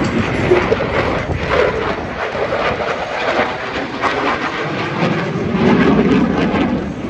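Military fighter jet flying overhead: loud, continuous jet engine noise with a crackling, rushing texture.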